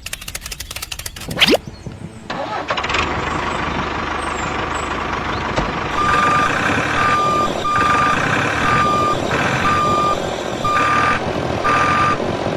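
Rapid clicking that ends in a quick rising whine, then a small vehicle's motor starts running steadily. About six seconds in, a reversing alarm begins beeping at an even pace, about once a second.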